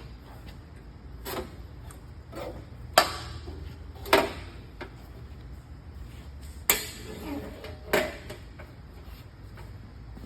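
Band saw's blade-cover panels being shut and fastened: a handful of sharp clunks and knocks spread out over several seconds, the loudest about three seconds in, over a low steady hum.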